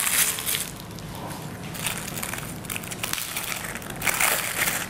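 Polythene bag crinkling and rustling as it is cut open with scissors, in uneven bursts that are louder just after the start and again near the end.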